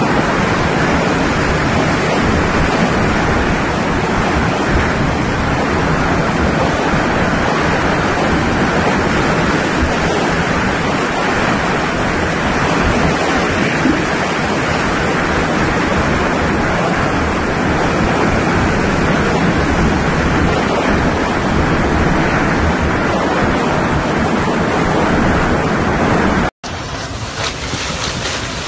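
Hurricane wind and rain blowing steadily and hard, with wind noise on the microphone. Near the end it cuts out for a moment, then comes back in gusts.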